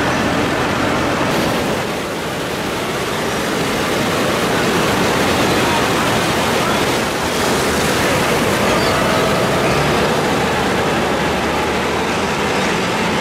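Ocean surf breaking on the beach as a steady rush of noise, mixed with the engine of a farm tractor hauling a beach-seine net.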